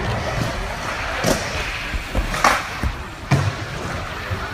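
Skateboard wheels rolling with a low rumble, struck through by three sharp board impacts about a second apart, with music in the background.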